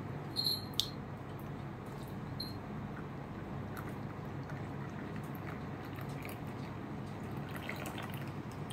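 A glass tea pitcher clinks sharply twice about half a second in. Faint drips and trickles of jasmine green tea follow as the pitcher is tilted and emptied, over a steady background hiss.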